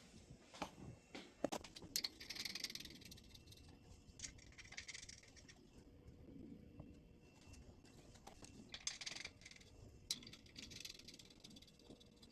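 Faint scattered light clicks and short rustles from hands handling metal engine parts and measuring tools while a main bearing's clearance is being checked.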